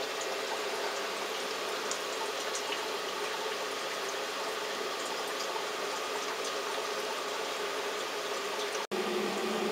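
Steady hiss of water flowing through a running Hydrologic Stealth reverse osmosis filter system as it filters city water.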